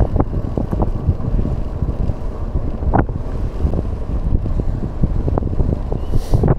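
Wind buffeting the microphone: a loud, low rumble with a few sharp ticks scattered through it, the clearest about three seconds in.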